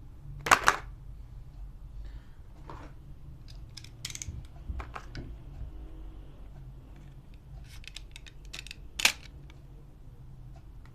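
Sharp plastic clicks and taps from handling during an unboxing: two loud clicks about half a second in, a few lighter ones around the middle, and a quick run of clicks ending in a loud one near the end.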